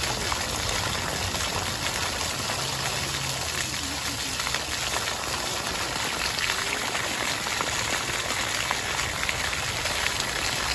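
Splash pad fountain jets spraying and water pattering on concrete, a steady hiss of falling water.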